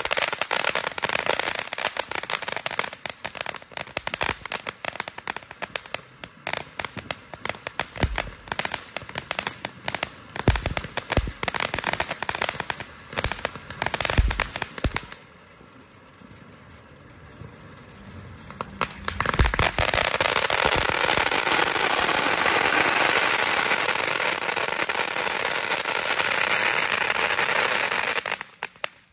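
Blue Dragon 'Ghost Rider' firework firing: rapid pops and crackles with several deep thumps of shots launching, a short lull about halfway, then a long stretch of dense continuous crackling that cuts off suddenly near the end.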